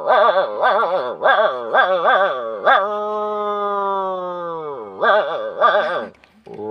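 A man imitating a dog howling at night with his voice: a quick run of short yelping barks, then one long howl that drops in pitch at its end, then two more yelps.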